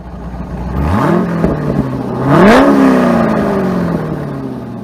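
Car engine accelerating, climbing in pitch about a second in and again, loudest, at about two and a half seconds, then falling slowly in pitch as it fades away.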